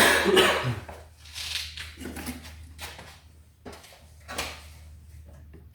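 Knocks and clatter of wood and tools being handled while a frame piece is fitted and checked: one sharp loud knock at the start, then several lighter knocks and rustles, over a steady low hum.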